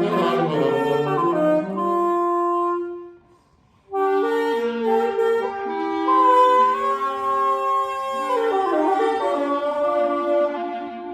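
Free-improvised jazz for clarinet and saxophones: several long notes are held together in shifting chords. The reeds drop out briefly about three seconds in, then come back in together.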